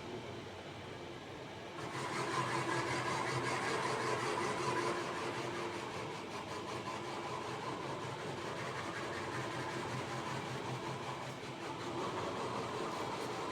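Centre lathe running steadily with the tool cutting the rotating workpiece. The sound grows louder and brighter a little under two seconds in.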